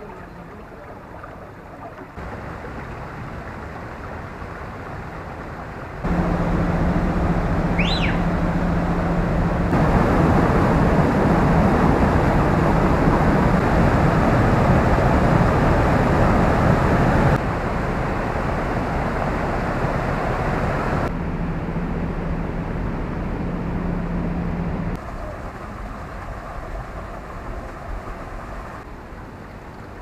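Rushing water from small waterfalls pouring over stone weirs, a steady rush that grows and drops back in abrupt steps and is loudest in the middle. A bird gives one short rising chirp about eight seconds in.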